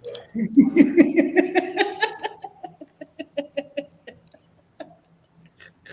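A person laughing: a loud burst of laughter that breaks into short, rapid pulses and fades out about four seconds in.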